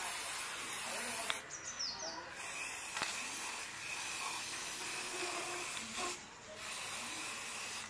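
Aerosol spray-paint can hissing in long spurts, cutting off briefly about one and a half seconds in and again about six seconds in.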